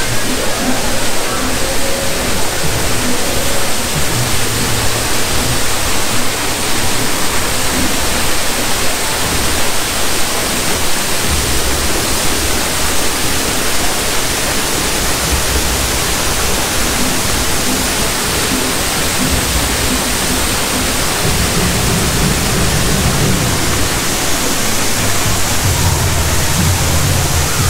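Steady rush of falling water from a waterfall, with faint music underneath.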